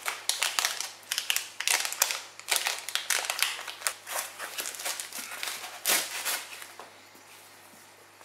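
Foam packaging wrap crinkling and rustling under handling as a boxed smartphone is unwrapped, with a louder thump about six seconds in. The sound thins out near the end.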